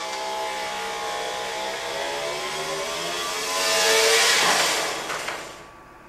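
Hiss together with a mechanical whine whose several pitches slowly drift up and down. It swells about four seconds in, and the hiss cuts off shortly before the end.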